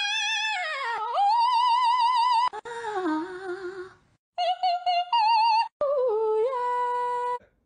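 A very high wordless singing voice with a wide vibrato, sliding up into a held note, dropping low, then holding short notes between brief breaks. It is a dubbed vocal set to rabbits' open mouths, not a sound the rabbits make.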